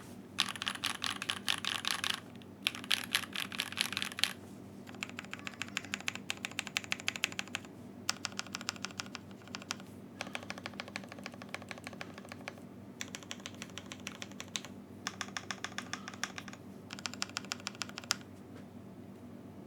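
Custom mechanical keyboard with a brass plate, lubed Grexer Black linear switches and PBT keycaps being typed on in fast runs of keystrokes, with short pauses between runs.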